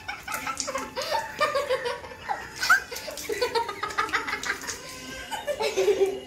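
Children laughing in repeated short bursts of giggling and chuckling.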